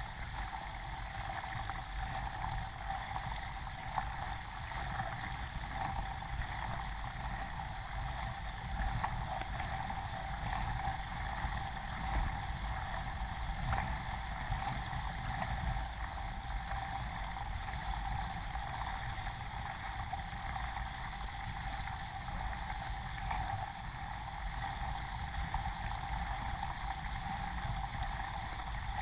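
Water rushing and splashing along the hull of a K1 racing kayak under paddle, heard from a camera mounted on the boat, over a steady low rumble.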